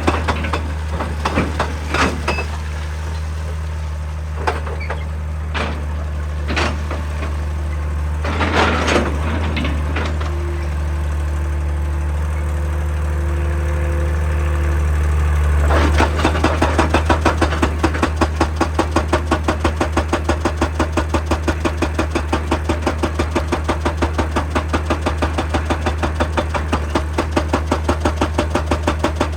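Excavator diesel engine running steadily, with occasional knocks over the first few seconds. About halfway through, its hydraulic breaker hammer starts up: a fast, even pounding of about four to five blows a second.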